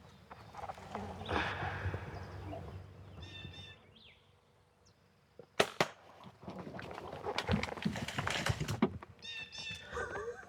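A bow shot: one sharp, loud snap a little past halfway, followed by a few seconds of crashing and rustling through brush as the hit black bear runs off. Short high-pitched calls are heard once before the shot and again near the end.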